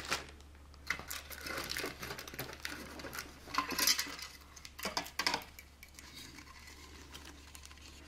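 Unpacking a plastic model kit: a thin plastic parts bag crinkling and hard styrene parts clicking against each other, in irregular bursts.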